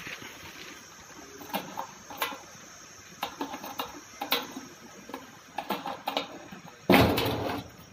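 Key turning and rattling in a cam lock on a sheet-metal cabinet drawer, giving a string of small irregular clicks and clacks, then a much louder burst of noise about a second long near the end.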